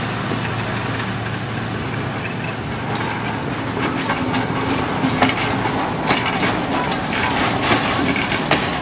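Diesel-hauled passenger train with double-deck coaches passing close by. The locomotive's low engine hum fades as the coaches roll past, and from about three seconds in the wheels and bogies give many sharp clicks and knocks on the track.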